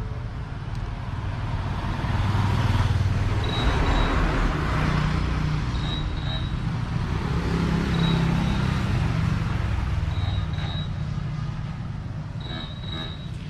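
Motor vehicle engine rumble that swells over several seconds and then fades, with a short high-pitched double chirp coming back about every two seconds.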